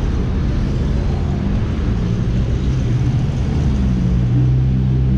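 Street traffic: a nearby motor vehicle engine running with a low, steady hum that gets stronger about halfway through.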